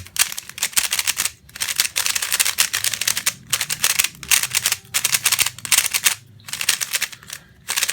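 New Meilong 3x3 speedcube being turned fast by hand: rapid plastic clicking and clattering of the layers in bursts of a second or so, with brief pauses between. The brand-new cube still feels sandy and greasy from factory lube.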